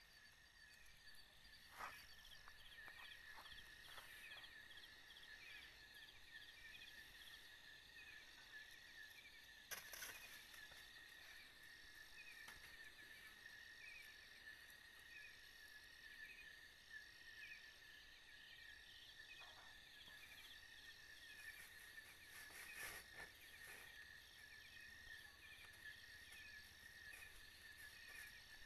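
Faint night chorus of crickets and other insects: a steady high trill with several fast, evenly repeating chirping rhythms layered over it. A few brief knocks or rustles break in, the loudest about ten seconds in.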